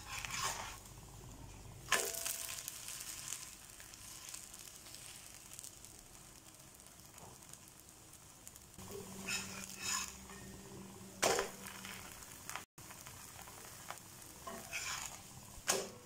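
Maida dosa frying on a hot dosa tawa, a faint steady sizzle. A few sharp scrapes or taps of the spatula against the pan, about 2 seconds in, about 11 seconds in and near the end.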